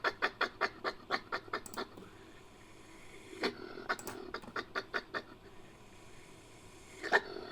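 Designed creature call for an extinct civet, made from Asian civet and badger recordings: two runs of rapid chattering pulses, about six or seven a second, then one louder single call near the end.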